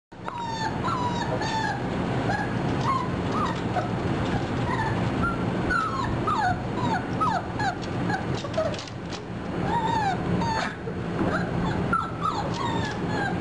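A litter of 4½-week-old German Shorthaired Pointer puppies whimpering and yipping: many short, high calls that bend up and down in quick succession, over a steady low hum.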